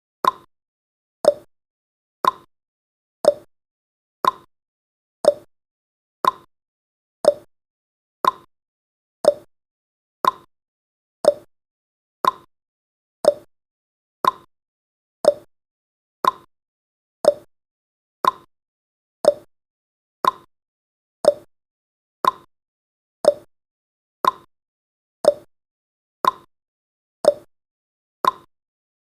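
Countdown timer's ticking sound effect: a short tick about once a second, alternating between a lower and a higher pitch.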